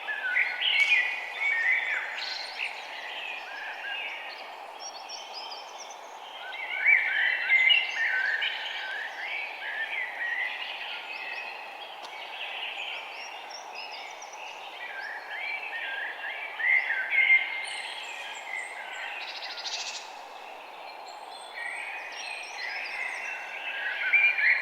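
Forest ambience of several birds chirping and twittering over a steady background hiss. The song thickens into louder bursts about a second in, around seven seconds, around seventeen seconds and near the end.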